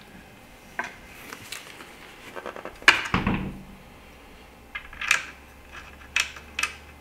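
Handling sounds from a clamshell photo reflector being assembled: several sharp clicks and knocks of its plastic parts and frame, with some rustle, as the mounting bracket is fitted and its plastic wing nuts tightened. The loudest knock comes about three seconds in.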